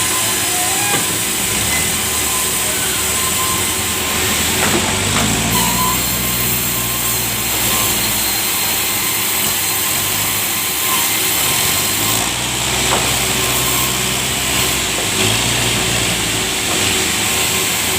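Sawmill saw cutting through a large log: a loud, steady hissing whine. A lower, engine-like drone swells in twice, about five seconds in and again about twelve seconds in.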